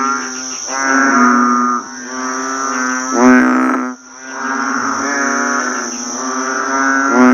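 A bullfrog calling with its throat vocal sac swelling: a series of loud, low, pitched calls, each one to two seconds long, separated by brief breaks.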